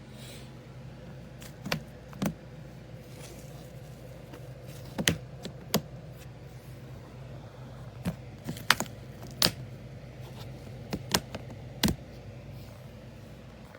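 About a dozen short, sharp clicks and knocks at irregular intervals, some in quick pairs, over a low steady hum.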